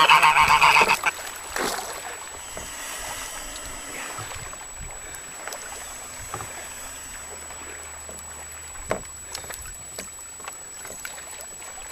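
Water sloshing and lapping against a fishing kayak, with small splashes from a person in the water beside it. A loud cry in the first second.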